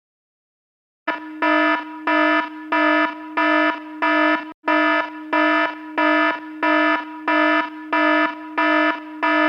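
Electronic alarm clock buzzing: a harsh, steady tone that pulses louder about twice a second. It starts about a second in and breaks off for an instant near the middle.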